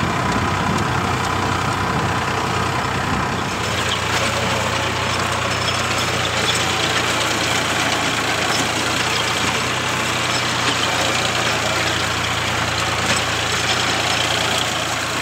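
Farm tractor's diesel engine running steadily under load as it pulls an implement through the field. Its low hum shifts slightly about three and a half seconds in.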